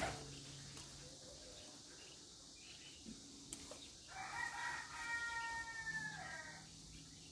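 A rooster crowing once, a single drawn-out call about four seconds in that lasts about two and a half seconds and drops in pitch at the end.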